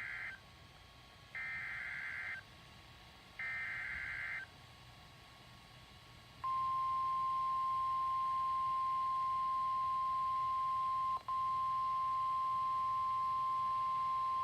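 NOAA Weather Radio Emergency Alert System transmission: the end of one burst and two more one-second bursts of the SAME digital header, a warbling data tone. About two seconds later the steady 1050 Hz warning alarm tone starts, signalling a warning broadcast, with one brief dropout partway through.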